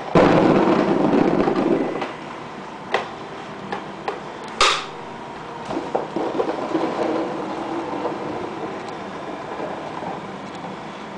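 Paintballs poured out of a paintball loader into a cardboard box: a dense rattling rush for about two seconds. Then a few single knocks and a sharper clack, followed by softer clattering and handling noise.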